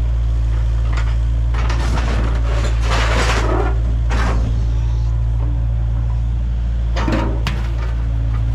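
Kubota KX057 mini excavator's diesel engine running steadily while its claw crunches and tears the sheet-metal roof of a minibus. The loudest crunching and scraping comes about two to four seconds in, with a shorter clatter about seven seconds in.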